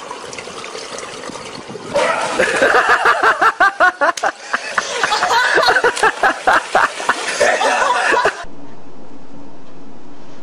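Splashing water, then people laughing hard in rapid broken bursts, which cut off abruptly near the end to a steady hiss.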